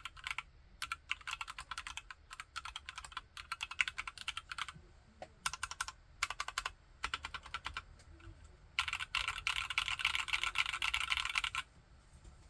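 A TKC Candybar mechanical keyboard with Akko POM Brown switches being typed on in runs of keystrokes, with a brief pause a little past halfway. A fast, dense run of typing follows and stops about a second before the end.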